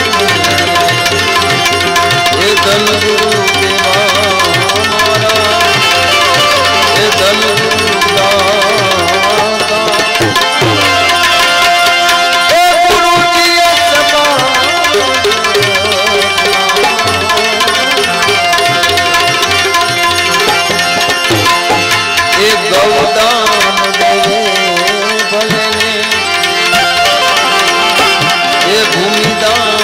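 Tabla keeping a steady rhythm under a sustained melody instrument: an instrumental stretch of live Gujarati devotional bhajan (santvani) music, with no singing.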